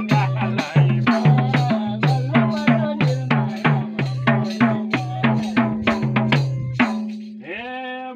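Madal, the Nepali two-headed barrel drum, played by hand in a quick folk rhythm of about three to four strokes a second, low and higher pitched strokes alternating. The drumming stops about seven seconds in, and a man's voice starts a drawn-out sung note near the end.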